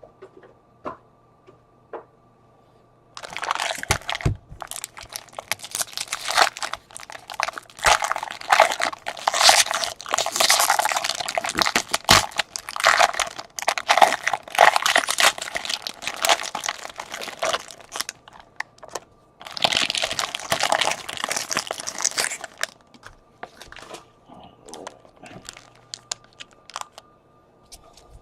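Plastic-foil trading-card pack wrappers being torn open and crinkled: a long stretch of dense crackling with a brief pause about two-thirds of the way through. Light clicks of cards being handled come before and after it.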